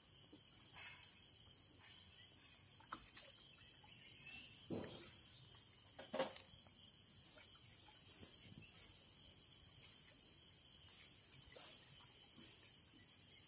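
Near silence with faint, steady insect chirring. A few soft knocks come about five and six seconds in.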